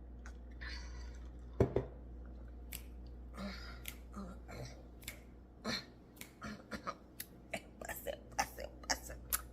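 Mouth sounds of someone chewing and tasting a thick peanut-butter sauce. There is a single sharp knock about one and a half seconds in, and a run of small quick clicks about two or three a second through the second half.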